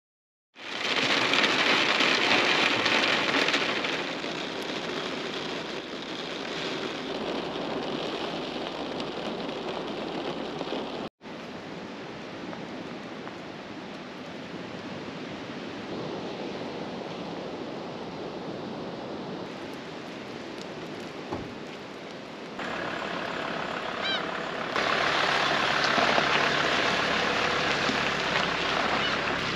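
Steady rain, a continuous hiss that drops out for an instant about a third of the way in and grows louder near the end.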